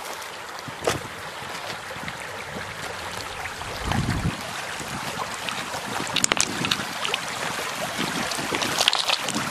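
Shallow stream rushing over a pebble bed: a steady hiss of flowing water with a few brighter splashes in the second half. Wind buffets the microphone briefly about four seconds in.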